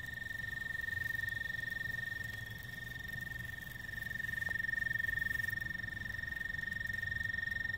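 A steady, high-pitched insect trill from hiding in the undergrowth, a fine rapid buzz on one pitch that cuts off abruptly near the end; the caller takes it for some sort of cricket or beetle.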